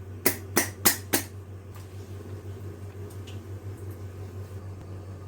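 Four quick knocks on a cooking pot, about a third of a second apart, followed by a steady low hum.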